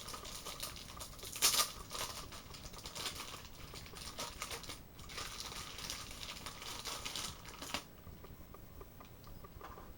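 Plastic toy packaging crinkling and rustling as parts of a large toy jet are handled and unwrapped, with a louder crackle about one and a half seconds in. It dies down near the end.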